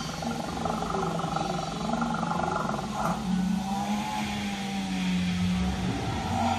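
Animatronic saber-toothed cat's recorded big-cat growl played through its speaker: a long, steady growl with a slow wavering in pitch partway through.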